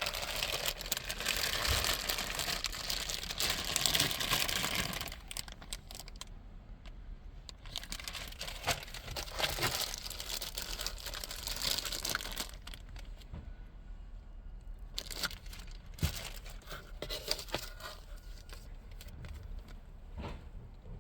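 Plastic packaging crinkling and rustling as parts are handled and unwrapped, loudest in two spells in the first half, then quieter handling with a few clicks.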